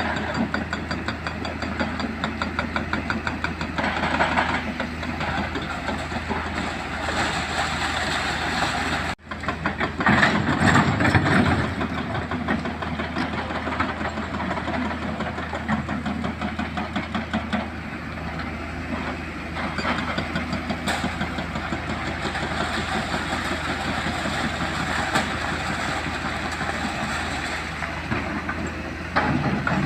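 Heavy excavator's diesel engine running steadily while it works, with a brief dropout about nine seconds in and a louder stretch just after.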